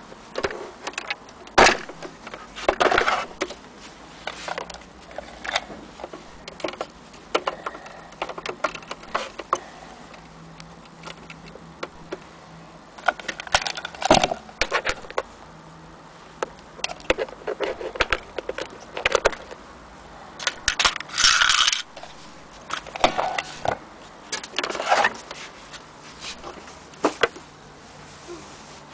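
Irregular clicks, knocks and scrapes as a Singer electric sewing machine's plastic casing is handled and turned over, with a longer scraping rustle a little over two-thirds of the way through.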